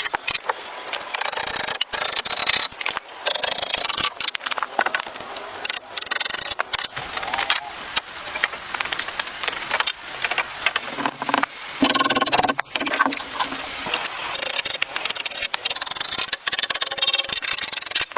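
Wood being scraped and rubbed in a rapid string of short cut-together clips, with sharp breaks every second or two.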